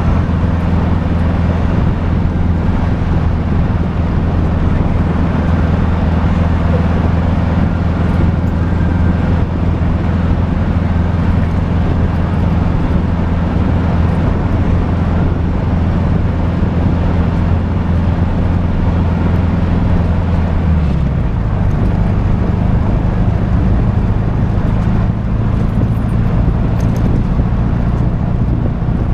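Trike engine running steadily while riding across hard, flat beach sand, under a steady rushing noise. About two-thirds of the way through, the engine note drops to a lower pitch and holds there.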